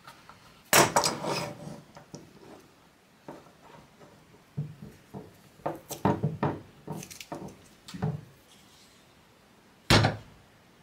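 Steel F-clamps and wooden blocks being handled on a workbench: a sharp knock about a second in, a run of clattering, clinking knocks in the middle, and another sharp knock near the end.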